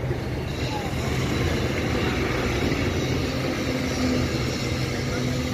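Heavy truck's diesel engine running steadily, a low steady hum under a haze of outdoor noise.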